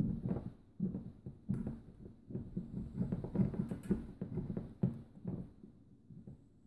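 Handling noise from a Patton fan's electric motor being worked by hand: irregular soft knocks and rubbing as the metal housing and rotor are shifted and fitted during greasing of the shaft.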